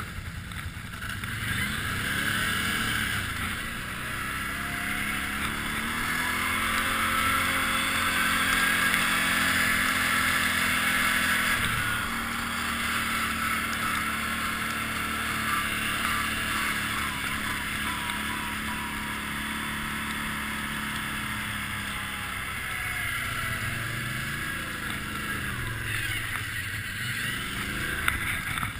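Can-Am ATV engine revving up and falling back again and again as the quad is ridden along a muddy track, over a steady rushing noise.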